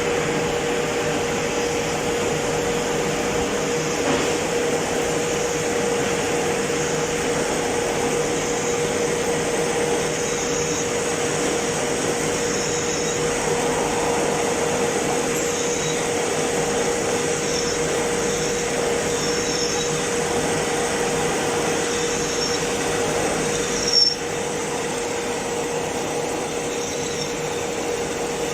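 Metal lathe running with a steady hum and mechanical noise, machining a metal casting. A single short knock comes about 24 seconds in, after which the running is slightly quieter.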